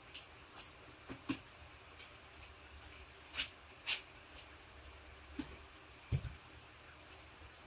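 Scattered sharp clicks and taps of tools and parts being handled during work on the dirt bike's cooling system, with a single dull thump about six seconds in.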